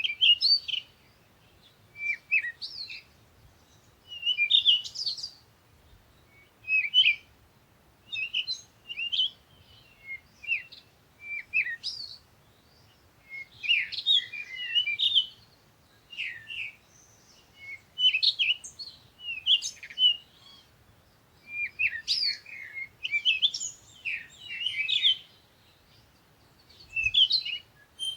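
Small songbirds chirping and twittering: quick high chirps and short trills in bursts every second or two, with quiet gaps between.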